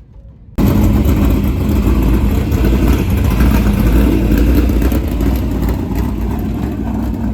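Dirt Late Model race car engines running loud and steady at speed, starting suddenly about half a second in.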